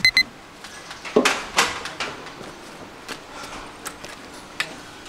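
A quick double beep, two short high electronic tones, followed by a few scattered knocks and clatters.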